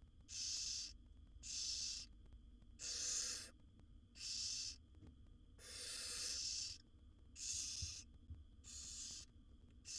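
Barn owl nestlings' hissing begging calls: rasping hisses, about one a second, each roughly half a second long, with a longer one near the middle.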